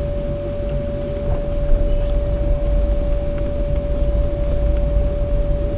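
Car driving at low speed: a steady low rumble of engine and tyres, with a constant high-pitched whine.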